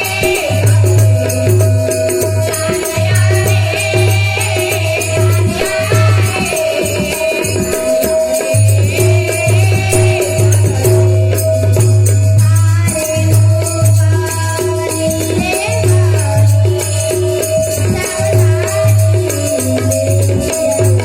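Devotional bhajan music: a harmonium playing a melody over a steady held drone, with singing, jingling hand percussion keeping a fast rhythm, and a deep pulsing low part.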